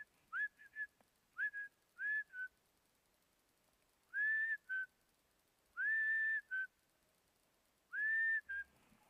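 Whistled two-note calls, loud against a quiet background: a high note that swoops up and holds, then a short slightly lower note, repeated about seven times, the ones from about four seconds in held longer.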